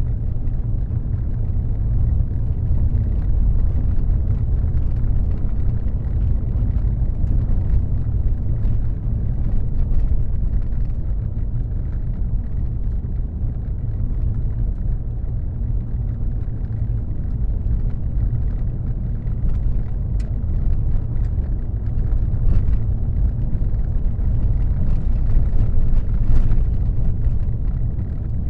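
Car driving at motorway speed: a steady low rumble of tyre, road and engine noise.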